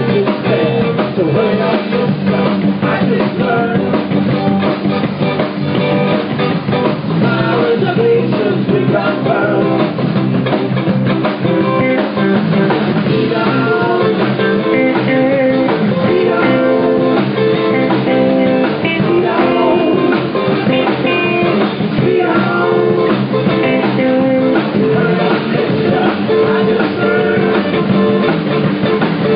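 Live rock band playing: electric guitars, bass guitar and a drum kit, heard loud and unbroken through a small room's acoustics.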